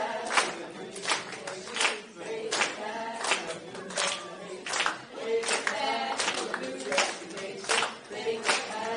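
A group of people singing together, with hand claps keeping a steady beat.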